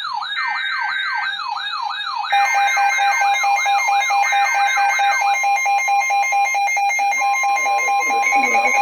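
An electronic alert siren wailing, its pitch sweeping up and down about three times a second, stops about five seconds in. Under it, three short bursts of chirping data tones sound, the SAME header that opens an Emergency Alert System weather radio alert, and a steady alert tone comes in near the end.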